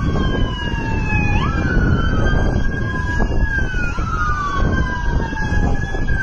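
A siren wailing, its pitch sliding slowly up and down in several overlapping sweeps, over a steady low rumble of wind and passing traffic.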